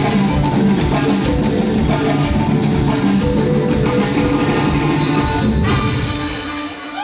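Live band playing through a PA during a sound check: drum kit, bass and electric guitar, easing off near the end.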